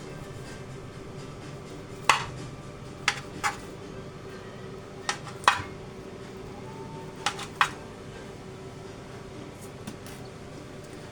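A kitchen knife knocks sharply against the surface beneath a whole skinned chicken as slits are cut into the meat. There are seven clicks, mostly in pairs, over a steady low hum.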